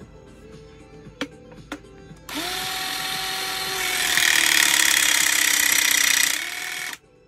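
Battery-powered 12-ton hydraulic crimping tool pressing against a crimp-force gauge: two clicks, then the pump motor starts and runs for about four and a half seconds, growing louder and harsher with its pitch sinking as the pressure builds, before stopping abruptly.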